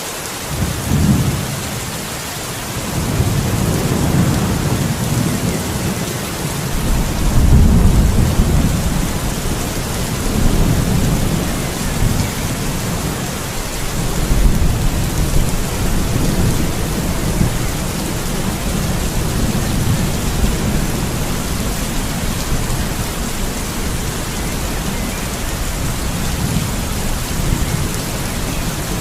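Thunderstorm: steady heavy rain hiss with rolling thunder, low rumbles that swell up about a second in, build to the loudest peak around a quarter of the way through, and keep rolling on and off after.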